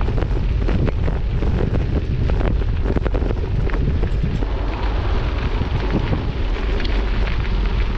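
Wind buffeting the microphone of a camera carried on a moving bicycle: a heavy, steady rumble broken by frequent crackles.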